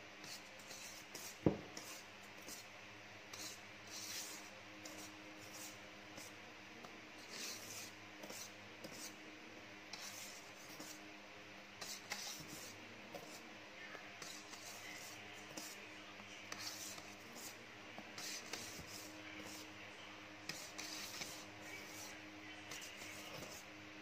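Wire whisk folding meringue into green tea cake batter in a stainless steel bowl: faint, irregular swishes and scrapes of the whisk through the batter and against the bowl, with one sharp knock about a second and a half in.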